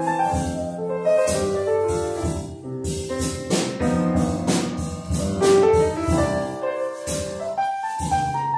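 Live jazz on an acoustic grand piano, a run of notes and chords played at a slow ballad pace, with the drum kit keeping time through light cymbal strokes.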